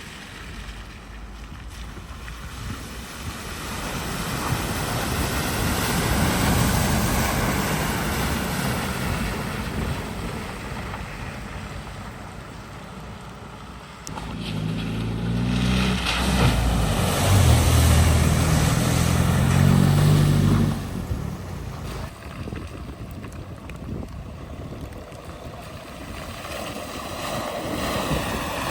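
Vehicles driving through a flooded ford, their tyres sending up a steady rushing wash of water. About halfway through, one vehicle's engine comes in loud, its note stepping up in pitch for several seconds, then it passes and drops away.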